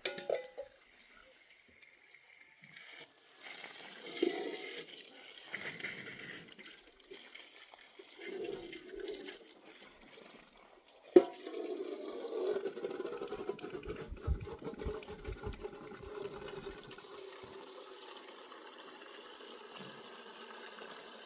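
Water being poured and sloshing in several irregular spells. A single sharp knock comes about eleven seconds in, followed by a longer, steadier run of pouring that slowly fades.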